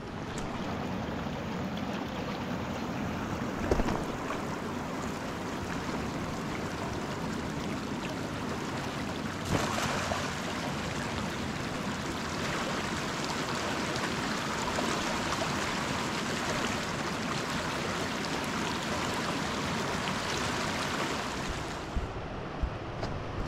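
Steady rush of flowing river water, with two brief knocks, about four and about nine and a half seconds in.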